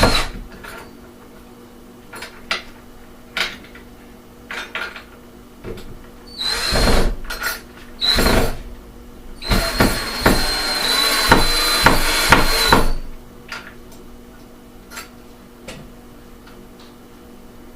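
Power drill driving screws to fasten a window-shade bracket to the wall: a few light taps, then three runs of the whining motor, two short ones and a last one of about three seconds.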